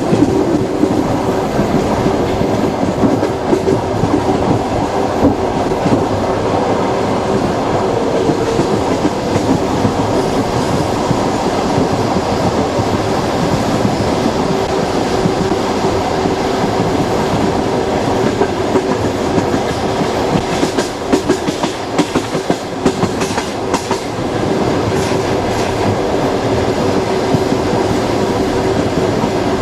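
Train wheels running on the rails, a steady rumble with the clickety-clack of the wheels over rail joints and a held hum. A stretch of sharper knocks comes a little after two-thirds of the way through.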